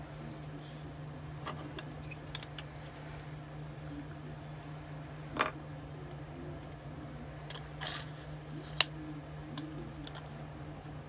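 Scattered metallic clicks and clinks as the steel collet holder and drill bit of a drill bit sharpener jig are handled and adjusted, the sharpest click about nine seconds in. A steady low hum runs underneath.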